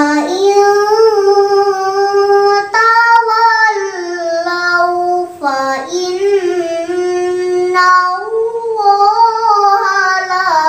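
A young girl reciting the Qur'an in melodic tilawah style: long held notes with ornamented turns, the phrases broken by short breaths about three, five and a half, and eight seconds in.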